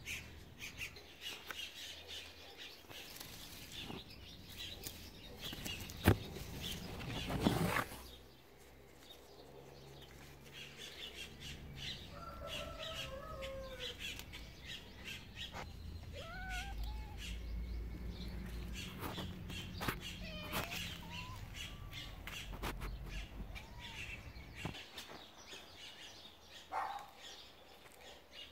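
Birds chirping in many short high chirps, with a few lower, curving calls in the second half. There is a sharp click about six seconds in and a brief louder noise just after seven seconds.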